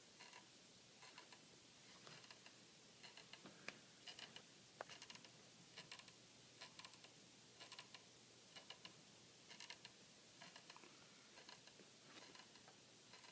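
Faint grinding from inside a coffee table: irregular clusters of small clicks, about one cluster every second.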